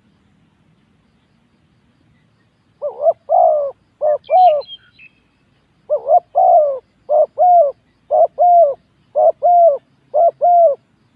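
Spotted dove cooing: a quick run of short coos in pairs, repeating about once a second, starting about three seconds in.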